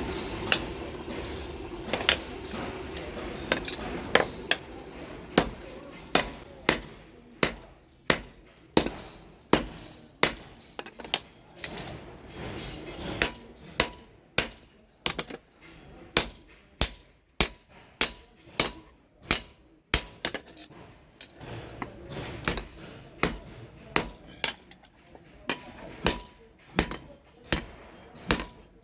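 Hammer blows on steel on an anvil, each strike sharp with a short ring. They come sparsely at first, then settle into a steady rhythm of about one and a half blows a second. A steady background noise fades out over the first few seconds.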